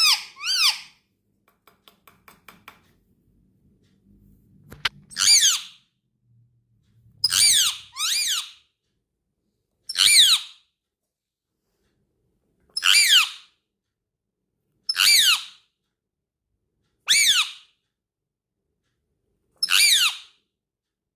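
Parrot calling: about ten loud, high-pitched calls, each about half a second long and falling in pitch, repeated every two to three seconds. There are faint clicks and a low hum between some of the calls.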